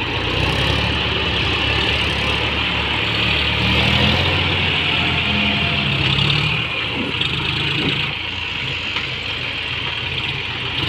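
Diesel tractor engine running while a front loader works sand, its speed stepping up and down as the loader works.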